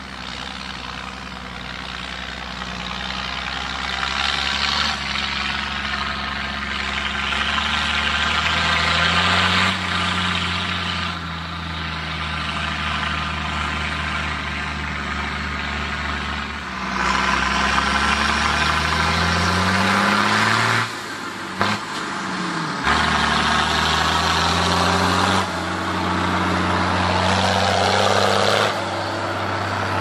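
Diesel engine of a 400 hp Fendt 824 tractor working hard under load while hauling a loaded three-axle trailer, its note rising and falling with revs as it passes. The sound breaks off abruptly and resumes a couple of times, near the middle.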